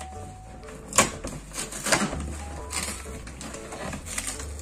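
Cardboard shipping box being opened by hand: tape and flaps are pulled and rustled, with a sharp snap about a second in and a few smaller crackles after.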